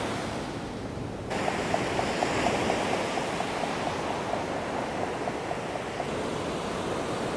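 Surf washing steadily behind a rapid, even clicking from an Alvey sidecast fishing reel as the line is wound in. The clicking starts a little over a second in and fades out about six seconds in.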